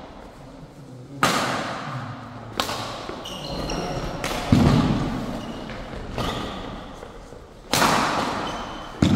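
Badminton rally: rackets striking the shuttlecock about every one and a half seconds, each hit ringing in a large hall, with a heavy footfall thud about four and a half seconds in and brief shoe squeaks on the court mat.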